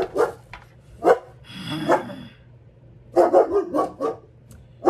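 Young German Shepherd puppy barking: single barks about a second apart, then a quick run of several barks a little after three seconds.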